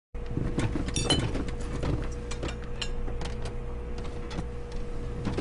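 Irregular small clicks and knocks over a steady faint hum.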